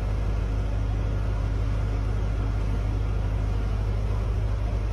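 Diesel engine of a Caterpillar 320 hydraulic excavator running steadily, a deep even rumble.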